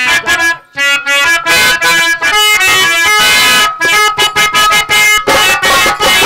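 Live Indian folk theatre music: a harmonium playing a melody of held, changing notes over rapid drum beats from a nagara-style drum.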